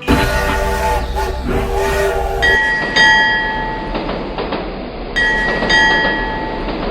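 A horn sounding two long blasts over a steady rumble, the first starting about two and a half seconds in and the second following right after it.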